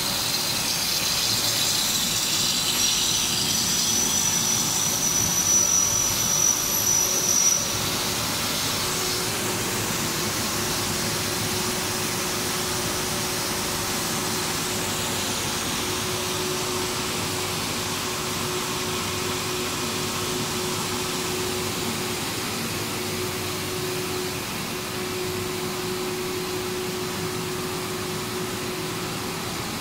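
Steady running noise of a PVC profile extrusion line. For the first seven or eight seconds a high hiss and thin whistle come from the vacuum calibration table's water and vacuum lines, then stop abruptly, leaving a steady machine hum with a faint whine.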